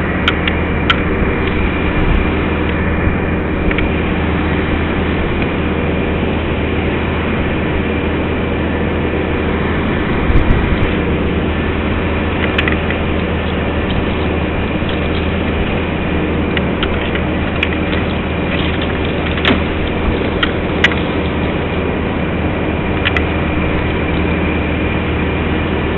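Heavy diesel engine, most likely the crane truck's, running steadily at a constant speed, with a few sharp clicks and knocks of machinery over it.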